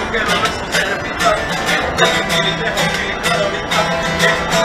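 Acoustic guitar strummed live in a steady rhythm inside a subway car.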